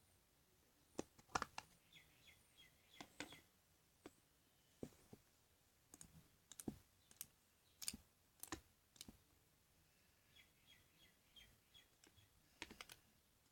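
Jiggly, glossy slime squeezed and stretched by hand, giving quiet, irregular clicks and small pops from air pockets caught in the slime, which is what makes it a clicky slime.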